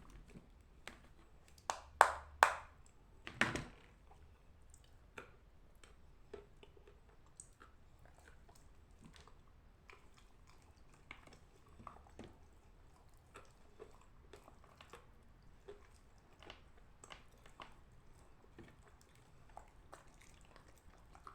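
Chunks of edible clay cracking and crunching: a few loud sharp snaps about two to three and a half seconds in, then faint scattered crunches and clicks.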